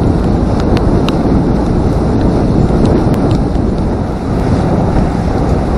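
Wind blowing hard across the microphone on a pontoon boat heading into wind and rain, a loud steady rumble. A few light ticks are scattered through it.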